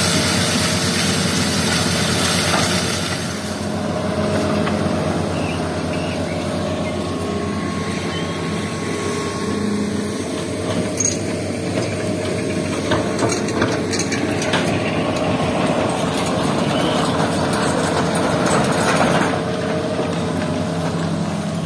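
Hitachi hydraulic excavator's diesel engine running steadily under work. For the first few seconds there is a hiss of sand and gravel pouring from the bucket through a sieve screen, and there are scattered knocks later.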